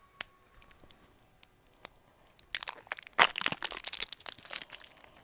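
A few light clicks, then, about halfway in, a dense spell of crinkling and crackling as plastic packaging is handled and worked at while being opened.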